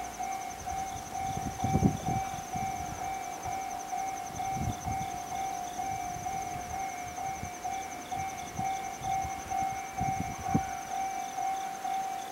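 Railway level-crossing warning alarm ringing with a steady, repeating electronic tone, signalling an approaching train. A few low thumps come about two seconds in and again near ten seconds.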